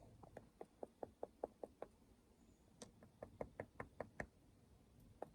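Quick, light knocks on a sandstone boulder, about five a second, in two runs with a short pause between: rapping the rock to hear whether it is wet.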